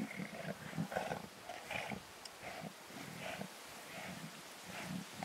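Lions growling while feeding on a wildebeest carcass: a run of short, low growls, about two or three a second.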